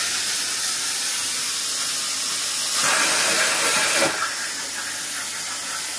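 Steady hiss of compressed air, likely the plasma cutter's air supply still blowing after the cut was stopped. About three seconds in, a louder rush of air lasts about a second.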